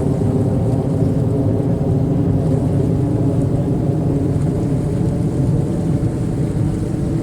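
Incoming high-tide waves at the sea wall, a steady loud rumbling wash with no breaks.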